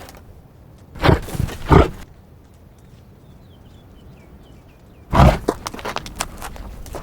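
Reindeer grunting: two short, loud grunts about a second in, a third about five seconds in, and a run of clicks after it.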